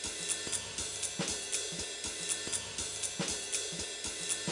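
Background music: a drum-kit beat with a steady hi-hat and cymbal rhythm.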